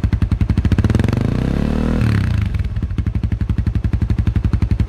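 Suzuki GSX-R150's single-cylinder engine idling through a Savrolix slip-on racing exhaust with the dB killer fitted. It is revved once, about a second in, and drops back to idle by about three seconds.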